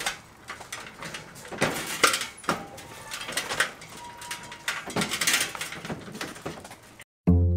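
Irregular knocks and clatter of small dirt bikes being pushed up an aluminium loading ramp into a pickup truck bed.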